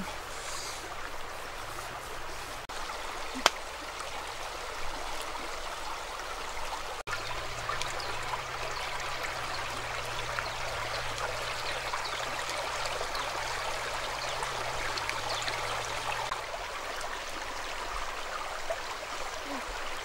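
Shallow creek running over a pebble bed, a steady trickling rush of water. One sharp click about three and a half seconds in.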